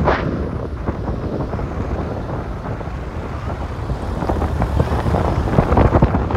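Wind buffeting the microphone of a phone held at a moving car's open window, over the low rumble of the car and its tyres on the road.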